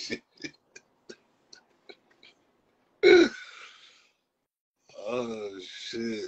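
A man laughing hard: short breathy gasps of laughter fading away, one loud wheezing whoop about three seconds in that drops in pitch and trails off, then pitched laughter picking up again near the end.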